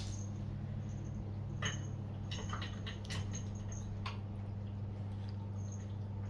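A cat pawing at a washing machine: light taps and scratches that come in a cluster from about a second and a half in to about four seconds, over a steady low hum.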